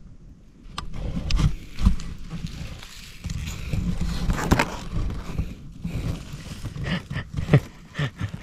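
Close rustling with scattered sharp clicks and a few soft thumps, at an irregular pace: handling noise from someone shifting about next to the microphone.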